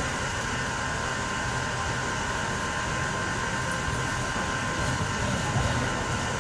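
Steady background noise: an even hiss and low rumble with a few faint, high steady tones.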